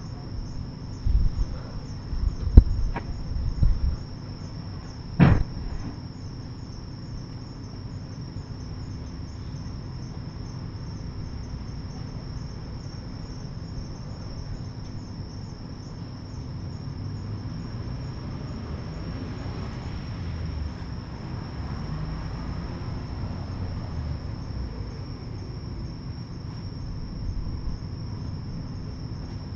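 A steady high insect trill runs throughout. Over it come several sharp bangs and knocks in the first few seconds, the loudest about two and a half seconds in and the last about five seconds in. A low rumble swells and fades in the middle.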